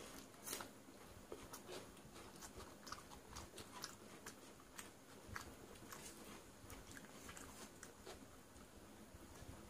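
Faint eating sounds: soft, irregular wet clicks and smacks of chewing, along with fingers working watery fermented rice (panta bhat).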